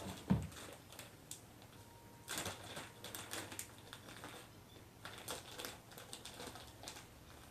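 Scattered light clicks and rustles, in two loose clusters, with a soft thump about a third of a second in.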